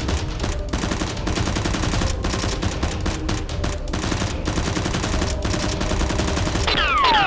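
Rapid automatic-gunfire sound effect, a dense stream of shots broken by short gaps, dubbed over a Nerf blaster being fired. Near the end, several falling whistles join the shots.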